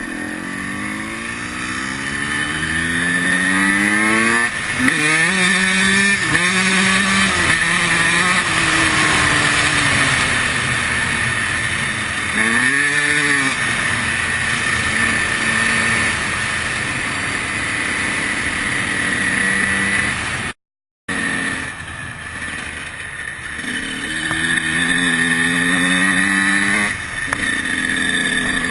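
Honda CR125 two-stroke single-cylinder dirt bike engine being ridden, its revs climbing and falling again and again as the throttle is worked, over a loud steady rushing hiss. The sound cuts out completely for a moment about two-thirds of the way through.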